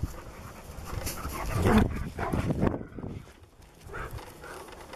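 A husky and another dog vocalizing in rough play. There are grumbling, growly dog sounds and panting, loudest in a burst a second and a half to two and a half seconds in.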